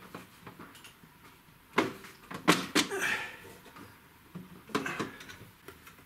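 Plastic case of a laser cutter's control panel being worked out of its snug mounting hole: a few sharp clicks and knocks about two to three seconds in and again near five seconds, with a brief scrape around three seconds.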